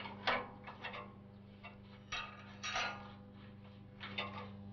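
Sealing cap being unscrewed by hand from the SF6 gas pipe fitting on a circuit-breaker pole column: irregular sharp metal clicks and short scrapes, loudest near the start and about two to three seconds in, over a steady low hum.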